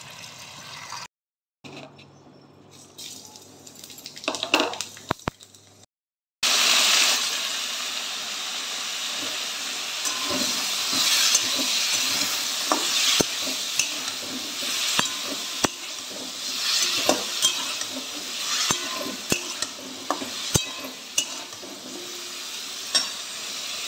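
Cut mixed vegetables sizzling in hot oil in a granite-coated wok, starting suddenly about six seconds in after a quiet stretch. A metal spatula stirs them throughout, with frequent clinks and scrapes against the pan.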